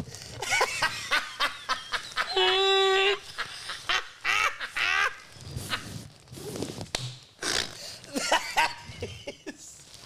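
Hysterical laughter, with high shrieks and honking, gasping laughs, including one held squeal about two and a half seconds in.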